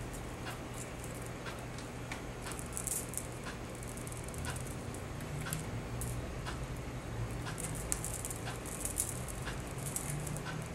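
Gemstone nugget beads clicking lightly against one another and copper wire rustling as beaded wire branches are handled and twisted together: scattered soft ticks and short rustles over a low steady hum.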